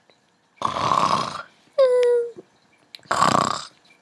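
Cartoon snoring sound effect: a rasping snore, then a whistling exhale, then another rasping snore.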